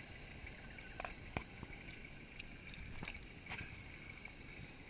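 Faint, distant four-wheel drive crawling slowly over rocks in a creek bed: a low, steady engine sound with a few scattered faint clicks and knocks.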